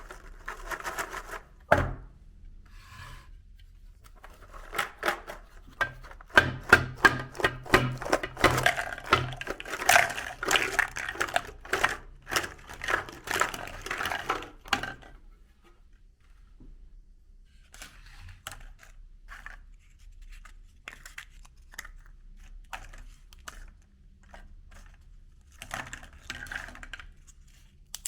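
Meat grinder crushing a crisp ice cream cone: a sharp knock about two seconds in, then a long stretch of dense crunching and crackling that thins to scattered, fainter crackles after about fifteen seconds, with a short burst of crunching again near the end.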